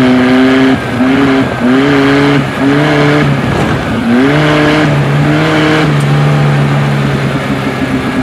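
Off-road vehicle engine under hard acceleration, its pitch climbing and then dropping back at each gear change, about six times in a row.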